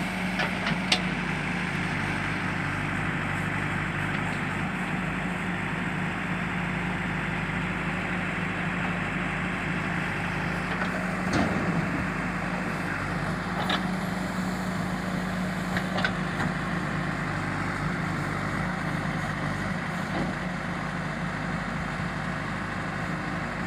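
JCB backhoe loader's diesel engine running steadily, with a few sharp knocks scattered through.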